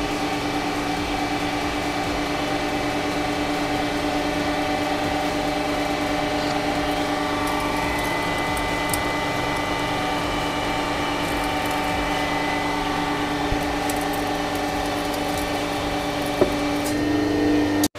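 The electric motor and hydraulic pump of a home-made hydraulic press running with a steady hum. There is a single sharp click near the end, and the hum then cuts off abruptly.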